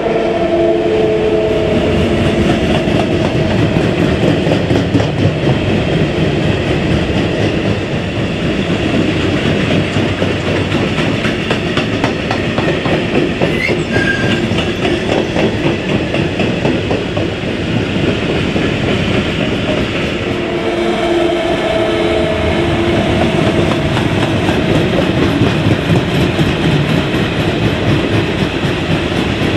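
A train rolling past close by, its wheels clattering continuously over the rails and joints for the whole stretch. A steady humming tone rises above the clatter at the start and again about two-thirds of the way through.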